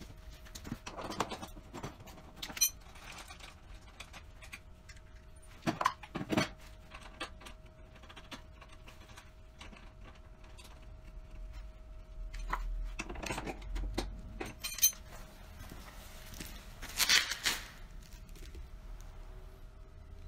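Metal tools and wheel hardware clinking and clattering intermittently as a snowblower wheel is taken off its axle and a new one fitted, with two short runs of rapid clicking from a socket ratchet.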